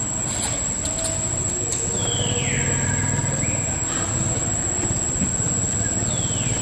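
Outdoor ambience: a steady low rumble under a constant high-pitched whine, with a falling whistled call about two seconds in and another near the end.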